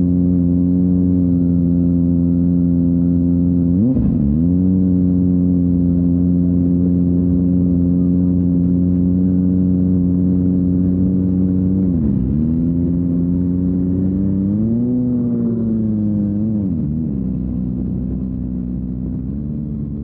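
Kawasaki Ninja ZX-25R's inline-four engine through a Yoshimura R-11 exhaust, held at a steady high rpm while riding. It dips briefly in pitch about 4 and 12 seconds in, wavers up and down a few seconds later, and fades down near the end.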